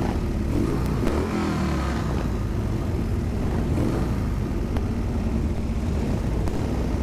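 Harley-Davidson Sportster V-twin engine running while riding, over a steady rumble of wind and road noise. The engine pitch rises briefly about a second in.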